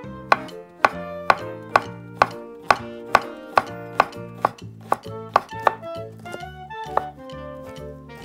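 Kitchen knife slicing king oyster mushrooms on a wooden cutting board, one sharp knock against the board with each stroke, about two a second. The strokes thin out after about five and a half seconds. Background music plays throughout.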